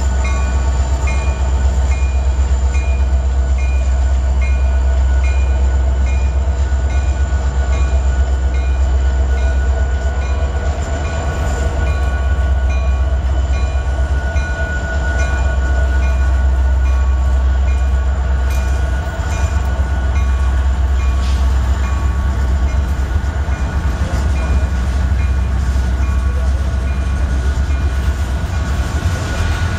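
A freight train rolls past, led by Union Pacific diesel locomotives with the unpowered Big Boy 4014 steam locomotive in tow, followed by a Southern Pacific heritage diesel and covered hopper cars. It makes a steady low rumble of diesel engines and wheels on the rails, with a high ding repeating about twice a second.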